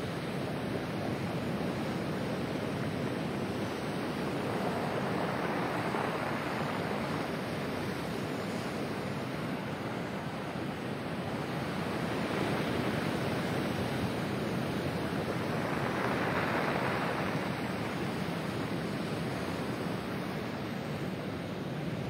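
Pacific Ocean surf breaking and washing up over a pebble beach: a continuous rushing wash of water that swells louder several times, most strongly about sixteen seconds in.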